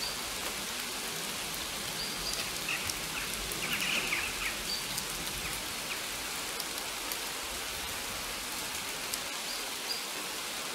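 Steady, even hiss like light rain, with scattered faint ticks and a few brief chirps about three to four seconds in.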